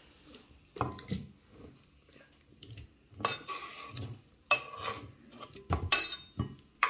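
Diced melon being scraped off a wooden cutting board into a glass bowl, with knife and board clinking and knocking against the glass. It comes in several short bursts, the first about a second in and the rest after a quiet moment.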